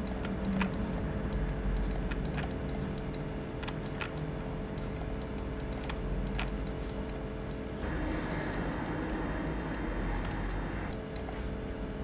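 Irregular clicking of a computer mouse and keyboard, many short clicks in no steady rhythm, over a steady low hum; a louder hiss joins about eight seconds in and drops away again near the end.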